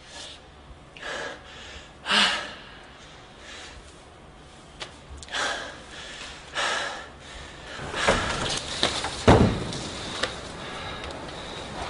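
A young man's gasping breaths, a handful of separate loud breaths spaced a second or more apart, as if he is out of breath. A low thump about nine seconds in is the loudest sound.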